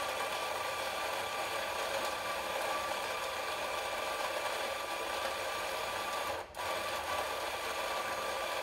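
ECM Casa electric coffee grinder with 50 mm flat burrs running, grinding coffee beans into a portafilter held under its spout. A steady whirring, broken by a brief dropout about six and a half seconds in.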